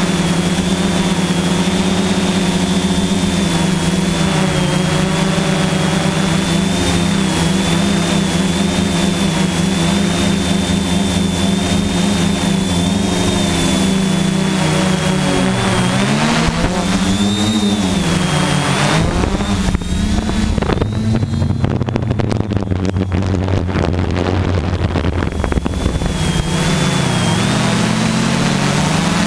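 Quadcopter's electric motors and propellers running, heard from the GoPro mounted on the craft: a steady drone with a high whine. About two-thirds through, the pitch dips and swings as the motors change speed. For several seconds after that the whine fades and the sound turns lower and rougher, and near the end the pitch swings again.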